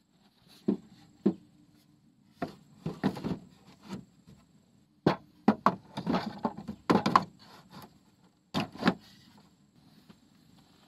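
Wood knocking and clattering: a series of irregular sharp knocks, a few at first, thickest in the middle, then two more before they stop.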